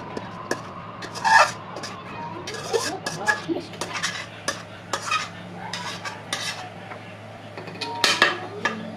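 A metal spatula scraping and clinking against a black kadai as the cooked food is scraped out into a steel bowl. It comes as irregular scrapes and knocks, loudest about a second in and again near the end.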